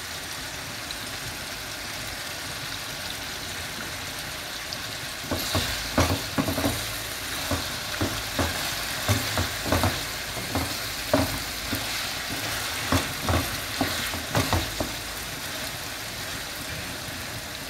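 A tomato, onion and fish sauce frying in oil in a pot, sizzling steadily. From about five seconds in, a wooden spoon stirs it, with irregular knocks and scrapes against the pot for about ten seconds.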